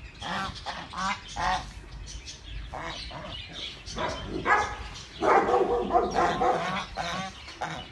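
White domestic geese honking repeatedly in short calls, with a louder run of overlapping honks about five seconds in.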